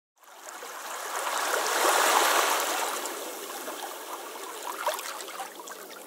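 Ocean wave washing up a beach: a rush of surf that swells to its loudest about two seconds in, then fades into a softer, lower wash of water.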